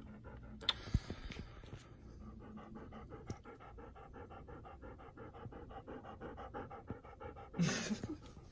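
A dog panting close up, quick and rhythmic at about five breaths a second. A couple of clicks about a second in, and a short louder vocal sound near the end.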